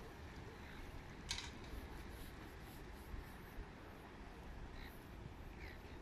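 Faint outdoor harbourside background noise with a low steady rumble, a single sharp click a little over a second in, and a few short high chirps near the end.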